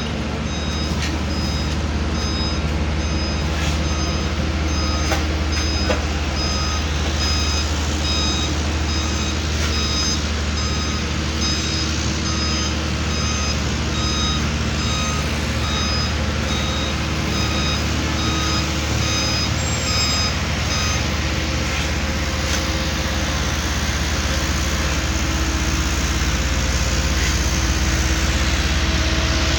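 Heavy road-works machine's engine running steadily, with its reversing alarm beeping over and over and stopping about two-thirds of the way through.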